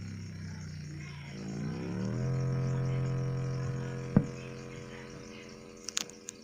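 Synthetic engine sound from a BDF-5 Xtreme Mini sound module played through JBL speakers: a droning engine note revs up about a third of the way in, holds, then fades away. A sharp click comes a little past halfway, and a few small clicks come near the end.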